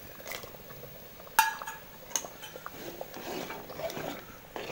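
A utensil clinks sharply against a metal cooking pot about a second and a half in, briefly ringing, with a lighter knock soon after. Then comes the uneven scraping and sloshing of payasam being stirred in the pot.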